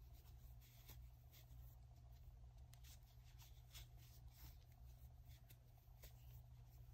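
Faint rustling and scattered light clicks of a metal crochet hook working braided cord, irregularly spaced, over a low steady hum.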